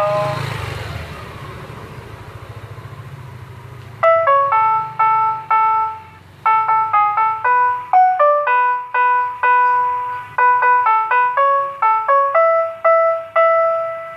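The electronic street jingle of a Susu Murni Nasional milk-vendor cart: a simple tune of clean, beep-like notes, some short and some held, starting about four seconds in. Before it, a hiss with a low hum under it fades away.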